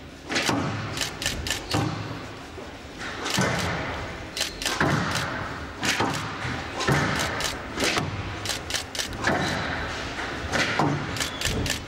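Squash rally: rackets striking the ball and the ball hitting the walls make many sharp knocks in quick, irregular succession.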